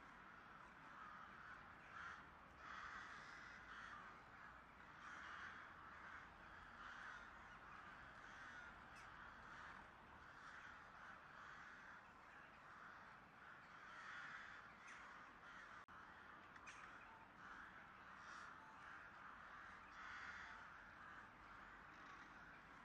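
Faint crows cawing, one call after another every second or two.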